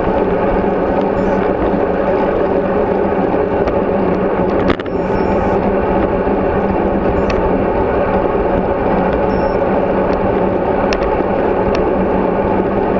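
Steady rush of wind and road rumble from a bicycle riding along a paved street, heard through a bike-mounted action camera. One sharp knock a little under five seconds in.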